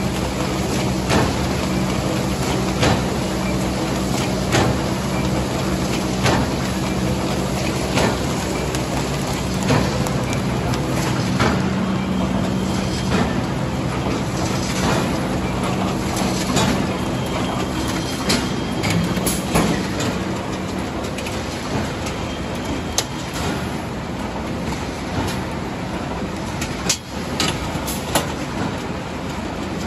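Large three-layer paper bag making machine running: a steady mechanical hum and clatter, with a sharp clack repeating a little under every two seconds as it cycles.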